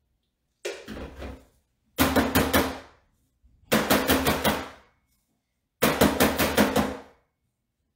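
A filled metal tart pan rapped rapidly against a metal countertop, in four bursts of quick taps, the first softer than the rest. The tapping levels the freshly poured filling and knocks out its air bubbles.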